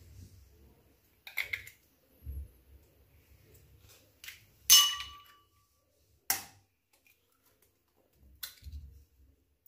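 Eggs tapped and cracked against the rim of a stainless steel bowl while being separated: about five sharp clacks with crackling shell between them. The loudest, about five seconds in, sets the bowl ringing briefly.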